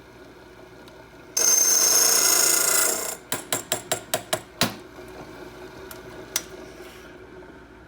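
Key-cutting machine's cutter cutting into a brass key blank for about a second and a half, then a quick run of about eight sharp clicks and one more click a little later.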